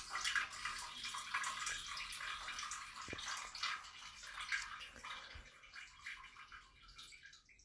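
Water running and spattering, with many small drips and splashes through it. It fades away over the last couple of seconds.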